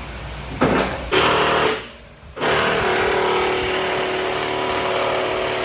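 Power tool working in short bursts, then running steadily with an even tone from about two and a half seconds in.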